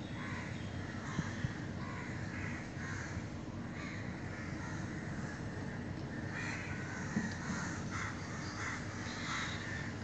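Crows cawing repeatedly, the calls coming thicker in the second half, over a steady low background hum.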